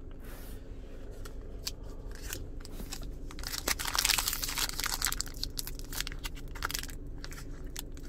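Foil trading-card pack wrappers crinkling and tearing as they are handled and opened: a busy run of small crackles that is loudest about halfway through.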